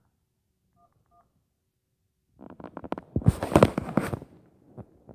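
Phone keypad touch-tones dialing 911: the two tones for the 1s sound about a second in, just after the tone for the 9. After that comes a loud burst of rapid knocking and clattering lasting about two seconds.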